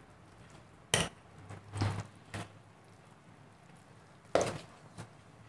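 Metal spoon clinking against a steel mixing bowl while stirring thick batter: several short, irregular clinks, the loudest about a second in and again near the end.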